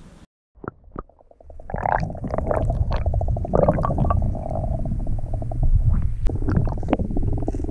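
Muffled, low sloshing and churning of swimming-pool water against a camera held at and under the surface. A quick, even run of small ticks sits over it from about one second in to about five seconds in.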